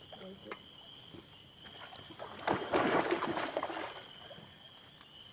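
A common loon caught on a fishing line, struggling in the water: one burst of splashing about two and a half seconds in that lasts over a second.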